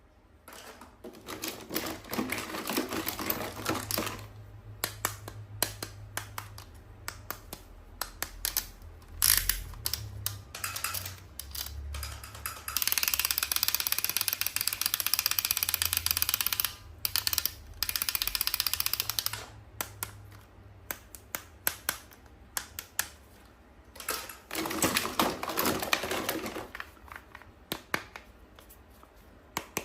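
Rapid clicking and tapping of small plastic toys and packaging being handled. From about thirteen to nineteen seconds in, a steady crinkling rustle takes over.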